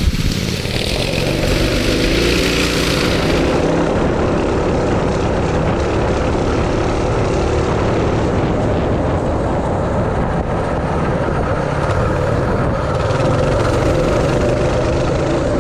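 The three Tillotson 212 single-cylinder four-stroke engines of a three-engine mini bike running together at speed as the bike is ridden around a dirt course. It is a loud, steady engine sound that hardly changes.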